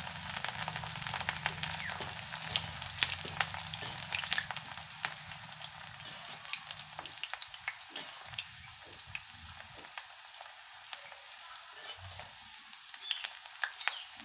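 Carrot slices deep-frying in hot oil in a kadai: a steady sizzle with many sharp pops, busiest in the first few seconds and easing later, while a slotted metal spoon stirs through the pan.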